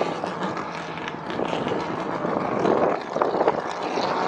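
Race car engine running on the circuit, a dense, noisy mechanical sound that eases slightly and then builds again about two-thirds of the way through.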